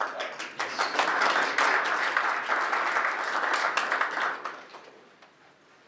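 Audience applauding, a dense patter of hand claps that dies away about four and a half seconds in.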